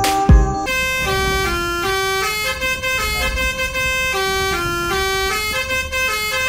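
Bus 'basuri' telolet horn playing a melody of held notes that change pitch in steps, starting under a second in as a music track with heavy bass kicks cuts off.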